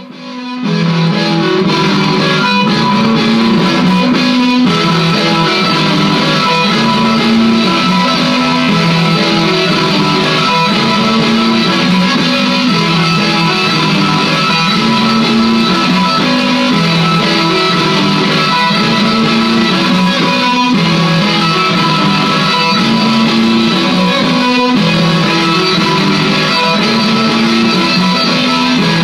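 Gretsch Electromatic electric guitar played through a looping pedal: a recorded phrase repeats about every four seconds, with low notes and higher picked notes layered over it. It comes in about half a second in.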